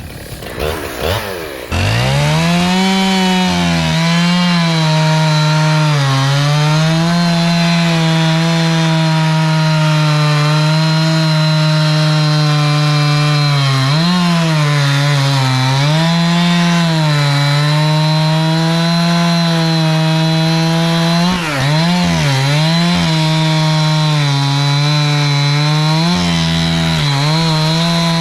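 Jonsered two-stroke chainsaw revving up about two seconds in and then running at full throttle through a cut in a tree, its pitch sagging and recovering several times as the chain loads in the wood.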